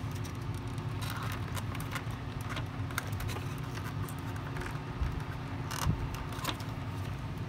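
Plastic housing parts of a Shark NV500 vacuum handle clicking and scraping against each other as they are worked into place by hand, with the wiring catching. Scattered small clicks and rubbing, a sharper click a little before six seconds in, over a steady low hum.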